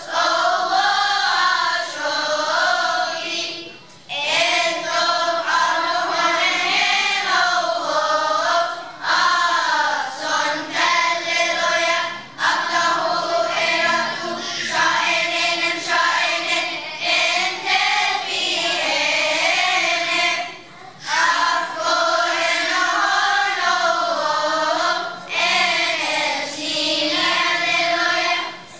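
Children's choir singing together, in sung phrases with short breaks between them.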